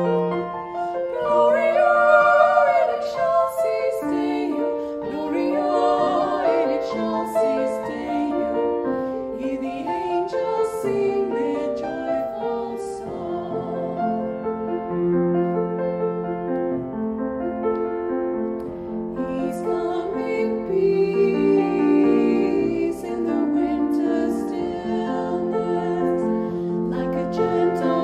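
Two women singing a song together, accompanied by a grand piano.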